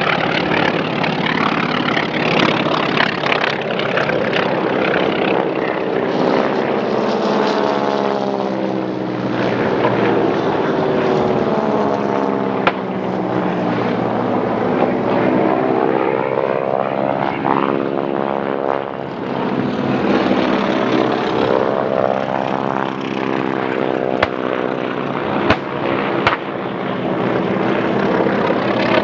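Propeller-driven warbird replicas flying low passes, their engines running continuously with a sweeping tone that swells and falls away several times as planes pass over.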